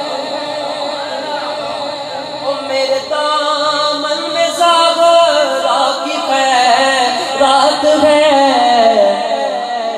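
Male reciter singing an Urdu naat: a long, drawn-out melodic line without clear words, climbing in pitch in the middle and falling back near the end.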